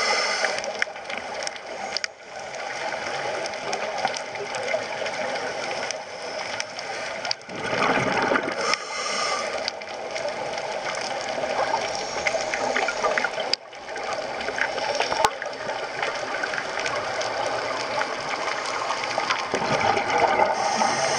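Underwater water noise typical of a scuba diver filming: a steady bubbly gurgle and hiss, swelling into louder bubbling a few times, as from exhaled regulator bubbles.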